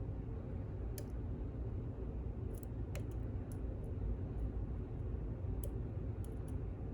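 Light, irregular metallic clicks of a lock pick probing and setting the pins of a pin-in-pin lock, about ten over the span, heard over a steady low hum.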